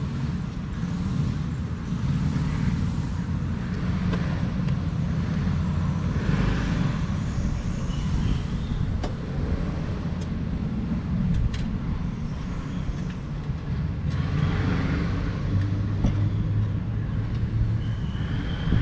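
Steady low rumble of motor vehicles, like nearby traffic, with a few sharp clicks partway through.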